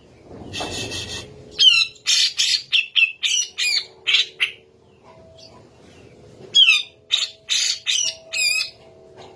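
Grey-cheeked bulbul (cucak jenggot) calling: after a brief noisy rush, two runs of rapid, harsh chattering notes with quick pitch sweeps, about two seconds apart, over a faint steady hum.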